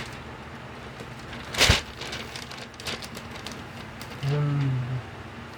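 Items being handled: a brief, loud rustle about a second and a half in and a few light clicks, then a short hummed vocal "mm" on one steady pitch near the end.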